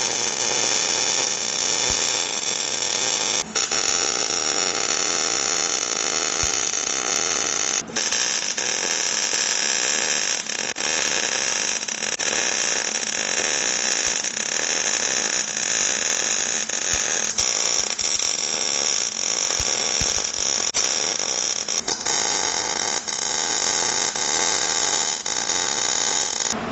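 Wire-feed (MIG) welding arc crackling steadily as a bead is laid along the steel truss of a Dana 60 axle. The arc breaks off briefly and restarts about three and a half seconds and eight seconds in.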